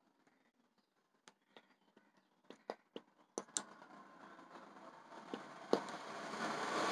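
Faint clicks and taps of a plastic glue tube and a metal spoon being handled over a glass bowl while white glue is squeezed out. From about halfway in, a steady hiss of background noise grows louder.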